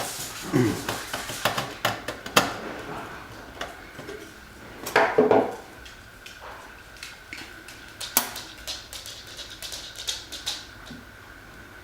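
Small metallic clicks, taps and handling noises of a screwdriver and resistor leads being worked into an alarm panel's screw terminals, irregular with a few louder clatters, over a faint steady high whine.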